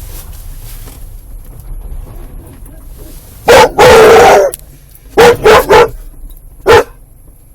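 A dog barking loudly in short bursts: two barks about halfway in, one drawn out, then three quick barks and one more. This is the barking Eddie does every time the car pulls up his owner's parents' driveway, out of excitement at arriving.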